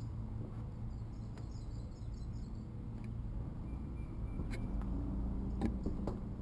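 Outdoor ambience with a steady low rumble and faint bird chirps in the first half, and a few light knocks near the end.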